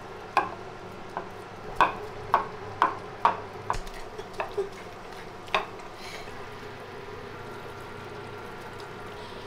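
Metal spoon stirring in a cooking pot, clinking sharply against it about ten times over the first six seconds, then only a faint steady hum.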